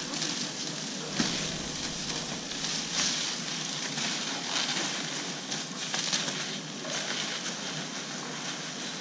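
Clear plastic sheeting crackling and rustling as it is pulled and spread over a pallet load, with a sharper crinkle about a second in.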